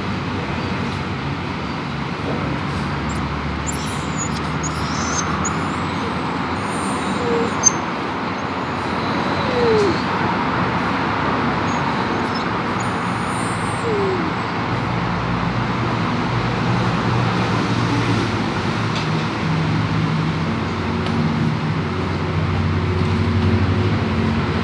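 Steady background noise: a constant hiss with a low hum underneath, and a couple of faint short falling squeaks near the middle.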